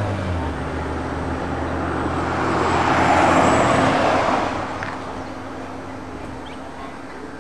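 Road noise of a moving car heard from inside it, with a low engine hum at the start. A rushing noise swells about three seconds in and fades again by about five seconds.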